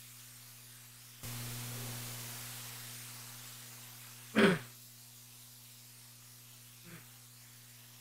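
Steady electrical hum and hiss from the recording microphone, which steps up in level a little over a second in. About four and a half seconds in, a person clears their throat once, short and loud, with a faint second sound near the end.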